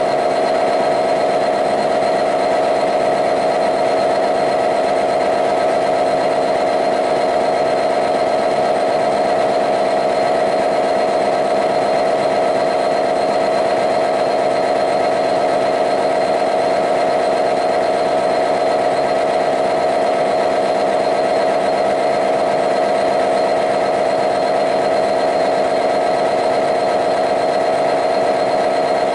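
Class 66 locomotive's EMD 710 two-stroke V12 diesel engine running steadily in its engine room, a loud, unchanging drone with a strong, steady tone.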